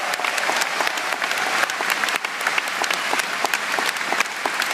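Large seated audience applauding: a dense, steady mass of handclaps.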